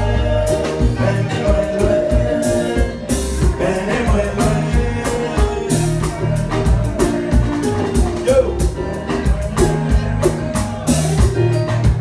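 Live Haitian konpa band playing: a male lead singer over acoustic and electric guitar, with a bass line and a steady beat.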